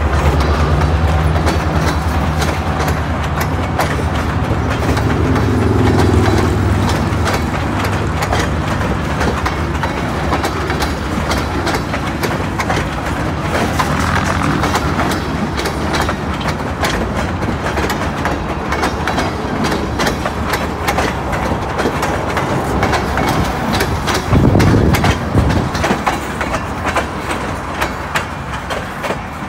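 Freight train of propane tank cars rolling past: steel wheels clicking unevenly over the rail joints above a steady low rumble. A brief louder low rumble comes near the end.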